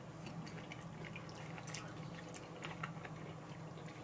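Faint chewing: small wet clicks and smacks of a mouth eating, over a steady low hum.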